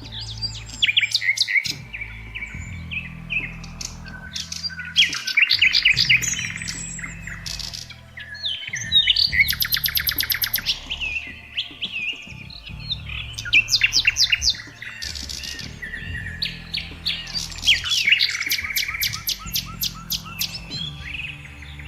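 Songbirds chirping and trilling: many short, quick calls, with fast rapid-fire trills around the middle and again near the end, over a low, soft background music bed.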